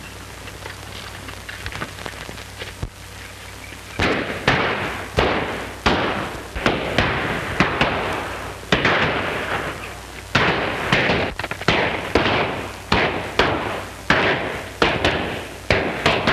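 A gunfight on an old film soundtrack: after a few quieter seconds, a steady run of gunshots begins about four seconds in, one or two a second, each with an echoing tail.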